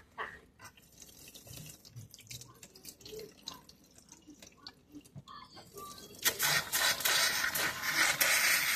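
Open hot-water tap sputtering as air is purged from a freshly refilled water heater. Scattered drips and spits at first, then from about six seconds in a loud spattering rush of air and water.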